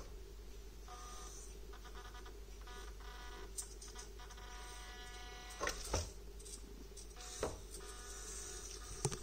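Orlandoo Hunter OH32M02 1/32 micro RC truck's N20 geared motors whining in steady spells as it crawls over rock, with a few sharp knocks as the truck bumps and drops on the stones.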